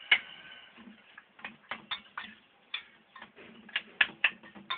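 About ten sharp, irregular metal clicks and taps of kitchen utensils against a pan, the loudest right at the start.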